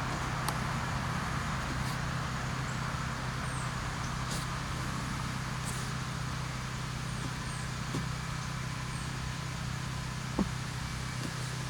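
Steady low hum under an even background noise, with faint high chirps and a single short click near the end.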